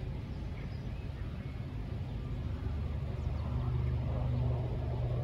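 Low, steady engine hum that swells a little over the last couple of seconds, with faint bird chirps.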